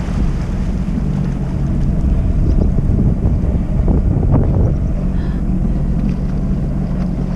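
Jet ski engine running slowly, a steady low hum, with wind buffeting the microphone and water splashing. It grows louder for a couple of seconds partway through.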